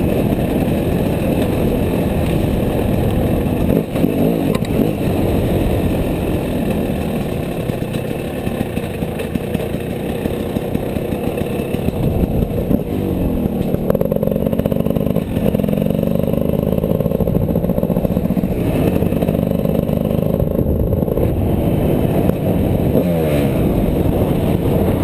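Gas Gas EC enduro motorcycle engine running under throttle, rough and uneven at first, then rising in pitch in repeated sweeps as it revs up through the gears about halfway in and runs steadily, with another rise near the end.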